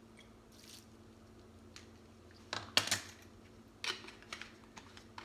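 A few sharp clicks and knocks from a bottle and utensils being handled over a steel mixing bowl at a kitchen counter, loudest about three seconds in, with smaller ticks after a quiet start.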